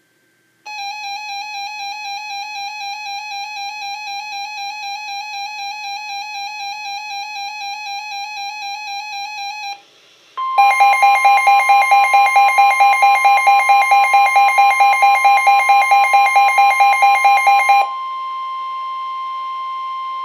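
Electronic alert tones of a NOAA Weather Radio warning broadcast. A pulsing beeping alarm sounds for about nine seconds. Then the steady 1050 Hz warning alarm tone starts, at first with a louder, faster beeping on top of it, and carries on alone for the last couple of seconds.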